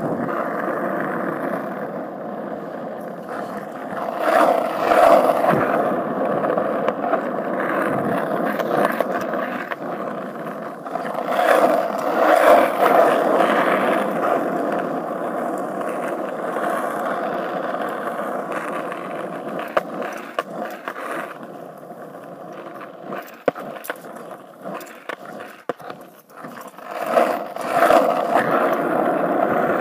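Skateboard wheels rolling over coarse asphalt, a continuous gritty rumble. It swells louder several times, and partway through it drops quieter with scattered sharp clicks before picking up again near the end.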